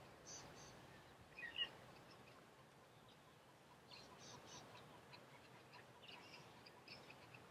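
Quiet bush ambience with faint, scattered wild bird chirps, and one louder two-note chirp about one and a half seconds in.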